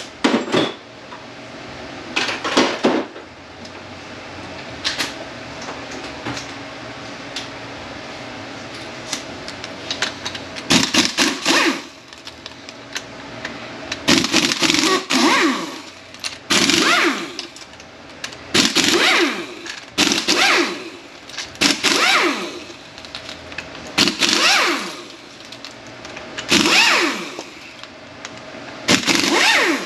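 A power tool running in about ten short bursts of a second or so, its pitch bending as it spins, while T45 Torx bolts are backed out of a Mercedes 722.9 transmission case. The bursts come closer together in the second half, every two seconds or so.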